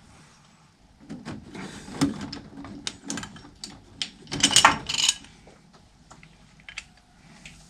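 Plumbing tools and PER pipe fittings being handled: scattered clicks and knocks, with a louder cluster of clicks about four and a half seconds in.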